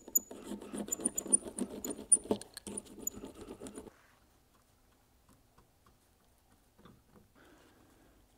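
Small hand roller working epoxy into fiberglass cloth on a plastic sheet: a quick, sticky crackling patter as the cloth is wetted out. It stops abruptly about four seconds in, leaving only faint handling sounds.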